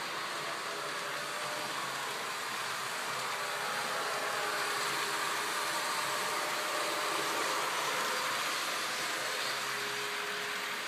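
Märklin model train running on the layout: the locomotives' electric motors and metal wheels on the track make a steady whirring rumble that grows a little louder midway through.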